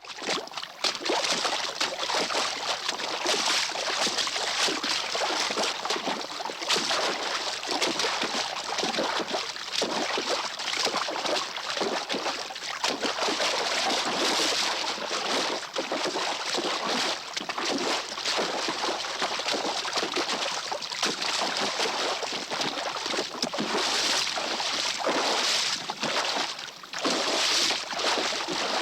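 A horse splashing through water, with a continuous run of splashes rising and falling.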